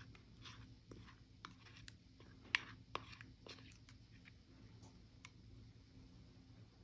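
Spoon stirring a thin chili-paste sauce in a ceramic bowl, faintly scraping and clicking against the bowl's sides, with two sharper clinks about two and a half and three seconds in; the clicks thin out in the second half.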